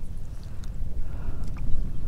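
Wind rumbling on an outdoor camera microphone aboard a kayak on open water, with a few faint ticks from handling gear.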